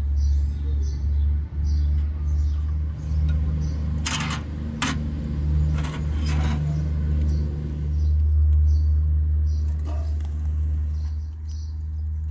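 Metal tongs clinking against the iron firebox of a wood-fired stove, a few sharp metallic clicks about four to seven seconds in, over a steady low rumble. Birds chirp faintly throughout.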